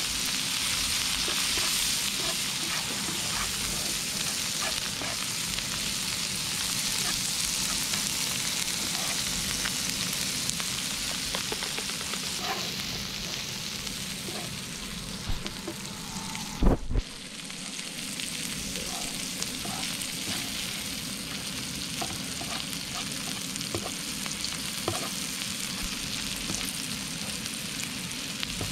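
Lobster chunks sizzling in melted butter with garlic and peppers on a flat griddle, a steady hiss with small clicks and scrapes as a wooden spatula stirs them. A couple of sharp knocks a little past halfway.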